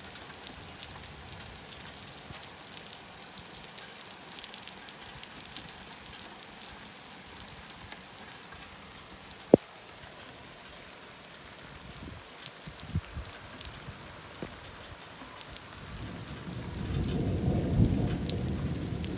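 Steady rain falling, with individual drops pattering. A single sharp tap comes about halfway through, and a low rumble of thunder builds in the last few seconds, loudest near the end.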